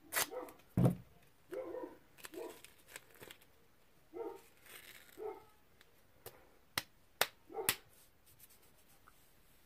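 Duct tape being pulled off the roll and wrapped around a person's wrists, with short ripping screeches of the tape, several in quick succession in the second half. There is a heavy thump about a second in.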